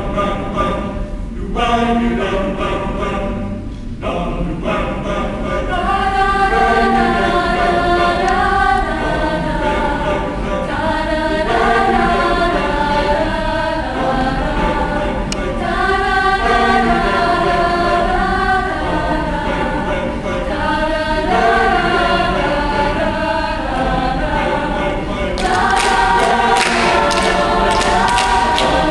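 Mixed high-school choir singing a cappella, a chant-like piece built on phrases from a West African chant from Cameroon. About 25 seconds in, hand clapping joins the singing.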